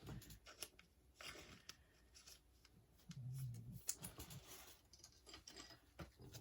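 Faint rustling and a few small clicks of a trading card being handled in its plastic sleeve.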